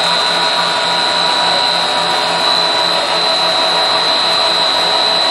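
Rice crust snack food extruder running steadily: its electric motor and screw drive give a loud, even machine noise with a steady high-pitched whine.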